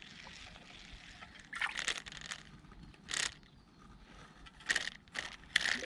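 Water splashing in about five short bursts a second or so apart, from a hooked black bass thrashing at the surface.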